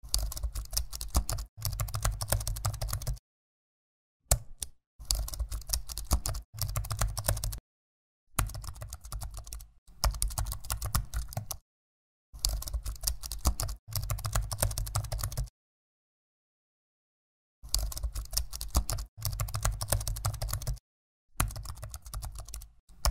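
Computer keyboard typing sound effect: rapid key clicking in bursts of one to two seconds, mostly in pairs, with gaps of dead silence between them, as text is typed onto the screen.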